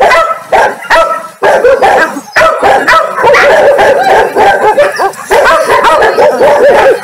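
Dogs barking again and again in short, high calls that overlap with hardly a pause.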